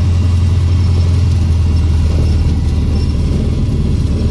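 Cessna 150's Continental O-200 four-cylinder engine running at low power, heard inside the cabin as a steady low drone, as the plane rolls on the grass after landing. The drone grows a little rougher about halfway through.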